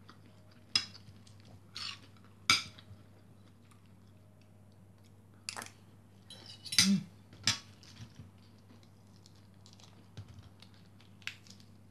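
Metal spoon and fork clinking and scraping on a plate, a handful of sharp clinks spaced a second or more apart, with chewing in between.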